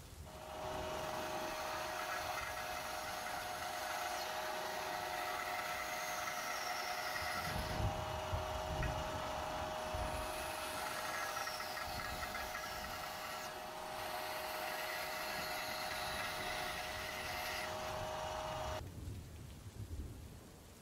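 Bandsaw running with a steady whine while it cuts short wooden pegs off a hardwood strip. It starts just after the beginning and stops shortly before the end, followed by a few low thumps.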